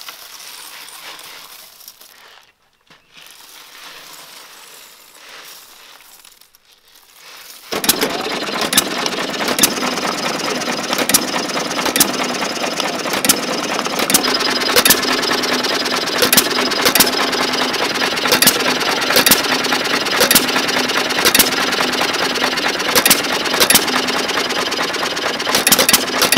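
Rock salt pouring onto crushed ice in an ice cream freezer bucket, a soft hiss. About eight seconds in, it gives way to a John Deere hit-and-miss engine running loudly, with a sharp bang at irregular intervals, roughly every half second to a second, over steady mechanical clatter. The uneven firing is the engine's governor letting it fire only when it slows, while it drives the ice cream freezer.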